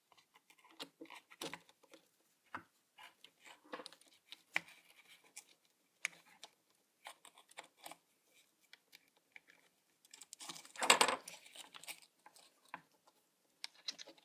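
Scattered small clicks and light knocks of RC car parts being handled as an aluminium drive shaft is fitted, with a louder scraping rustle about eleven seconds in.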